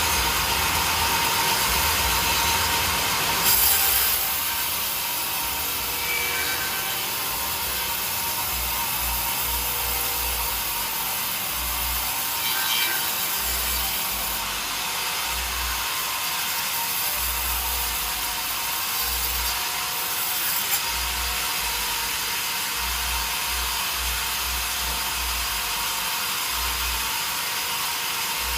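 Sawmill saw cutting through wood, a steady noise that runs on without a break.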